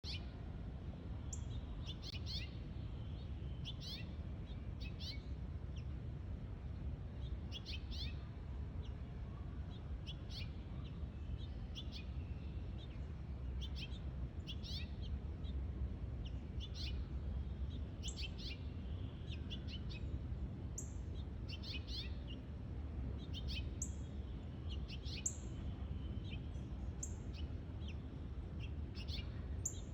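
Small songbirds chirping in the treetops: short, high, quick notes repeated irregularly throughout, sometimes in little runs, over a steady low background rumble.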